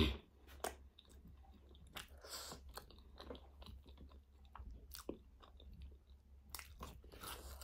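Soft close-up chewing and mouth smacks of a person eating a vegetable curry meal by hand, with scattered small clicks and a sharper click right at the start.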